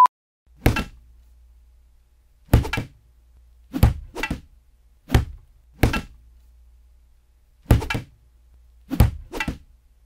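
Foley blows for a zombie beating: a shovel striking a punching bag wrapped in a jacket, with pieces of wood on it standing in for a skull. About ten heavy thuds with a hard edge, some in quick pairs, spaced unevenly, over a faint low hum.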